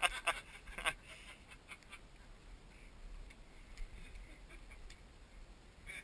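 A few sharp clicks in the first second, then quiet outdoor background with faint scattered ticks; no gunshot.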